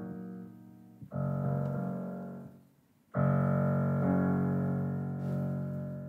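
Background piano music: a chord about a second in fades to a brief pause, then a louder chord comes in and rings on, slowly fading.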